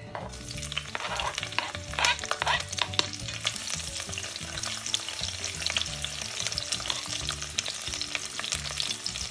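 Sliced red onions hitting hot oil in a pot and sizzling, with a burst of louder crackles in the first few seconds as they land, then steady frying with fine crackling as a spoon stirs them.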